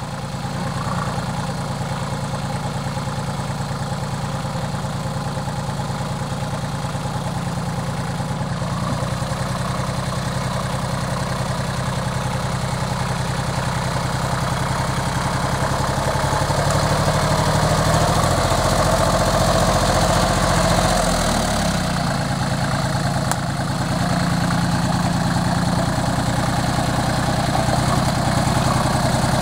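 Engine of a small MT8 compact tractor running as the tractor drives slowly toward the microphone, growing louder as it comes closer. A little past the middle the engine note shifts for a few seconds before settling again.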